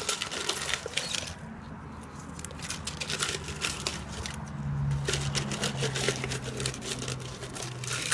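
Small plastic and metal electronic scrap parts being handled, giving irregular light clicks and rustles, over a low steady hum.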